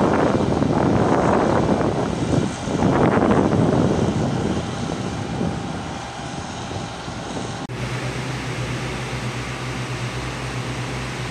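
A loud, rushing engine drone that fades after about five seconds. About eight seconds in it gives way abruptly to a steadier, low, pulsing engine hum.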